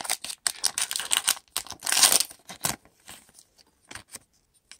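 Foil wrapper of a trading card pack crinkling and crackling as it is worked open by hand: a dense run of sharp crackles that thins out to a few scattered ticks after about three seconds.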